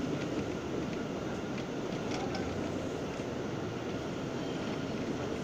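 R179 subway car running on the rails, heard from inside the car: a steady rumble of wheels and motors with a few faint clicks.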